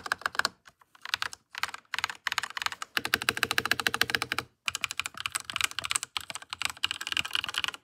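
Fast typing on a Langtu LT84 mechanical keyboard with its stock, out-of-the-box switches: rapid keystroke clacks in bursts, with short pauses between them.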